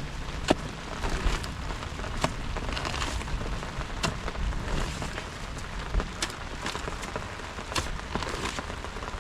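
Heavy rain falling steadily, with a few sharp ticks scattered through it.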